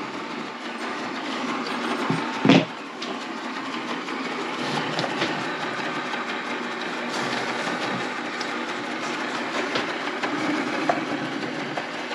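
Lefant M210B robot vacuum running steadily, its motor, brushes and wheels making a continuous whirring rattle as it drives onto its charging base. A single loud knock comes about two and a half seconds in.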